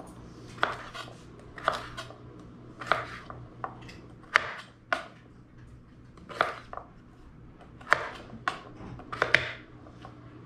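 Kitchen knife chopping raw sweet potato into chunks on a wooden cutting board: sharp knocks of the blade on the board at an uneven pace, roughly one a second. A low steady hum runs underneath.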